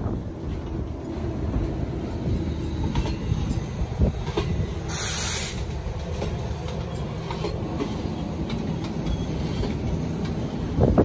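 Pakistan Railways passenger coaches rolling slowly past on arrival at a station, wheels rumbling and clicking over the rail joints. A short, sharp hiss comes about five seconds in.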